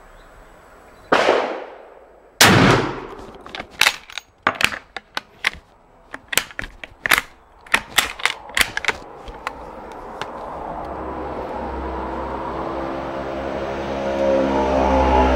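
Früwirth M1872 carbine firing 11.15x36R: a sharp crack about a second in, then a louder gunshot. A quick run of metallic clicks and clacks follows as the hard-working bolt is cycled to eject the case and feed the next round from the tube magazine. From about ten seconds in, a low engine drone slowly builds louder.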